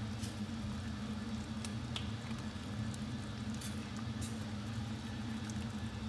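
Seafood sauce simmering in a stainless steel frying pan while a spatula stirs it: soft wet squishing and bubbling with a few light clicks, over a steady low hum.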